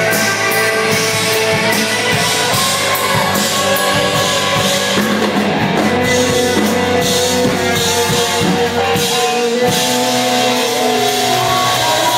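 Rock band playing live, loud and steady: drum kit with cymbals, and guitar.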